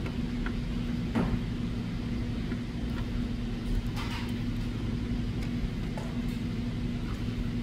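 Steady low machine hum with a constant pitched tone, under a few faint clicks and scrapes of a small flathead screwdriver working a wire under a terminal screw, about a second in and again about four seconds in.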